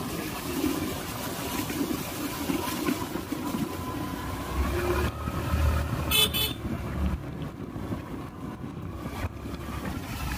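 Road noise from a moving vehicle: steady engine rumble and wind, with a vehicle horn sounding as a steady tone in the first half and a brief high chirping flutter about six seconds in.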